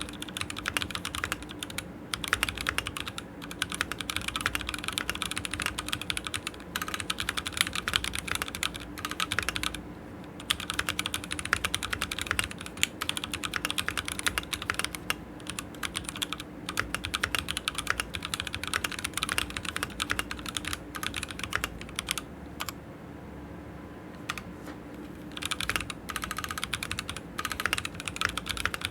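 Typing on a Keychron Q6 full-size aluminium mechanical keyboard with Gazzew Boba U4T tactile switches: fast runs of keystrokes with brief breaks, and a pause of about three seconds a little past two-thirds of the way through.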